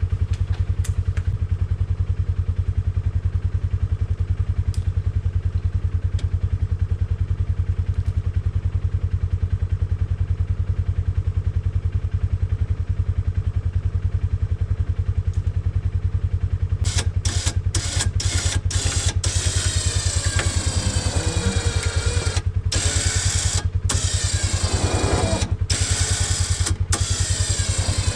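Polaris Sportsman 570 ATV's single-cylinder engine running steadily. From about two-thirds of the way in, the ATV's winch joins it with a whine that starts and stops several times in short pulls and slides in pitch under load. The winch is straining to drag a hung-up tree whose butt is dug into the ground.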